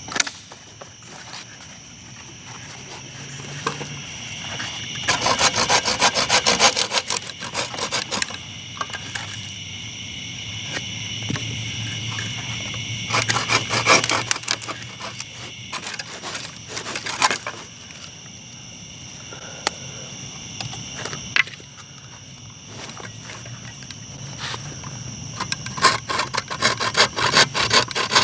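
A knife blade shaving thin curls off a wooden stick to make feather sticks, in runs of quick scraping strokes about 5, 13 and 26 seconds in. Insects chirp steadily underneath.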